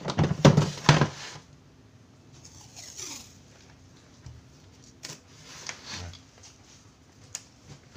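A hard plastic tool case clattering on a tile floor as it is handled and set down, for about the first second. Then masking tape is pulled off its roll with a short rasp and pressed onto the case, with a few light taps and clicks.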